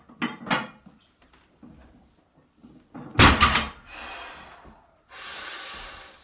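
A heavily loaded barbell set down on the floor during a deadlift: a loud thud and clatter of the plates about three seconds in, with a few lighter knocks before it. Afterwards come stretches of hissing hard breathing from the lifter.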